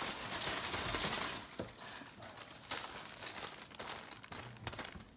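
Crinkling and rustling of a thin sheet of baking paper being handled and peeled away from cracker dough, busiest in the first second and a half, then scattered softer crackles.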